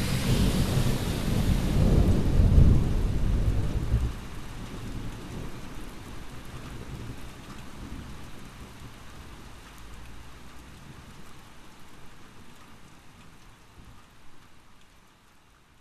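Thunder rumbling over steady rain. The thunder is loudest about two to three seconds in and dies away about four seconds in. The rain then fades slowly out.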